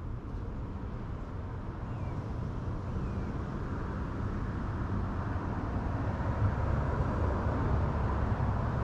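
Road traffic: a steady low rumble that slowly grows louder.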